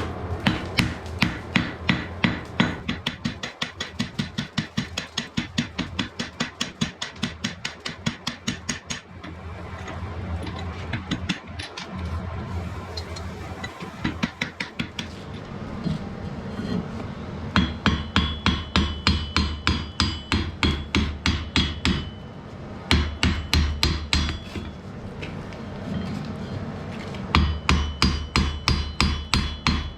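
Blacksmith's hammer striking iron on an anvil in quick, even runs of about three to four blows a second, with a stretch of steady noise without blows in the middle and short pauses between the later runs.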